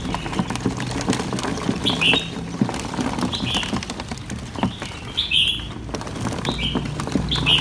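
A bird chirping, short high chirps repeating every second or two, over many small clicks and scratches of baby green iguanas' claws on a plastic tub as a hand stirs through them.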